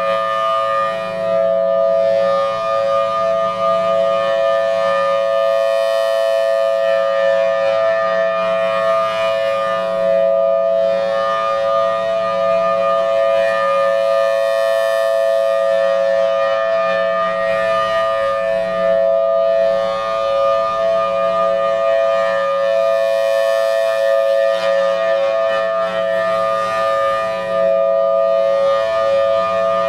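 A Federal Signal Thunderbolt 1003 dual-tone outdoor warning siren sounding a steady Alert: a continuous two-note chord in a 5:6 ratio. The high overtones swell and fade about every 9 seconds as the rotating siren head sweeps past.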